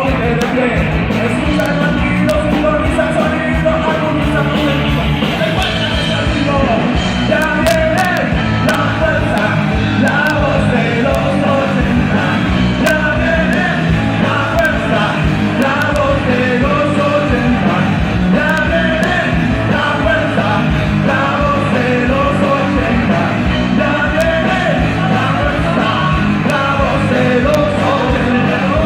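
Rock band playing live and loud, with singing over the full band.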